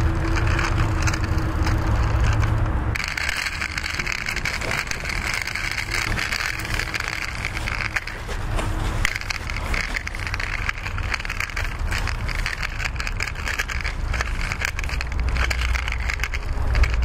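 Small metal diecast toy police car pushed by hand over rough concrete, its wheels rolling and grinding on the grit in a continuous crackly rumble.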